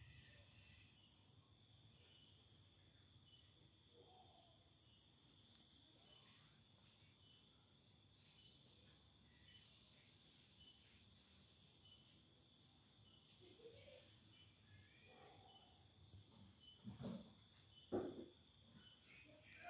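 Faint, steady chirping of night insects, like crickets, in a finely pulsing high chorus. Near the end come a few short knocks.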